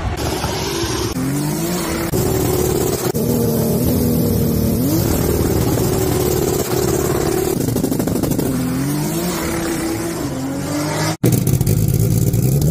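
Turbocharged drag-racing Chevrolet Caravan engine revving hard, its pitch climbing and holding again and again across several edited clips, with a brief dropout about eleven seconds in.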